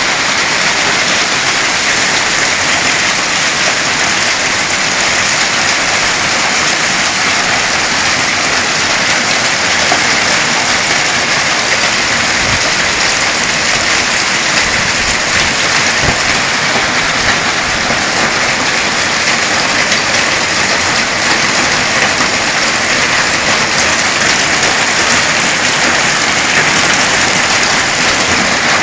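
Heavy hail falling and pelting hard surfaces: a dense, steady clatter of hailstones, with a few louder low thumps from larger stones.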